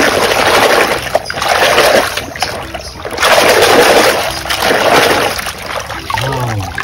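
A hand swishing and scrubbing a plastic toy robot in a tub of soapy water, splashing in three surges, the longest through the middle, then easing off near the end.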